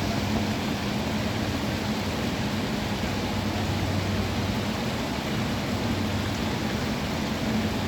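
Steady rush of heavy rain and wind coming in through an open window, with a low steady hum underneath.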